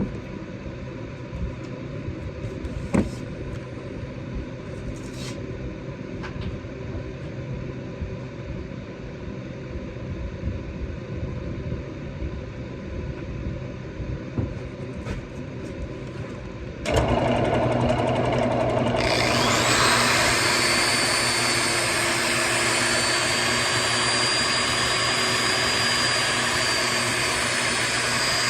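Workshop power tools starting: a motor comes on with a steady hum about two-thirds of the way in, and a second, higher-pitched motor whines up to speed two seconds later and then runs steadily. Before that there is only a low background hum with a few light clicks.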